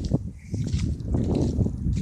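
Strong wind buffeting the microphone: an uneven low rumble that swells and fades in gusts.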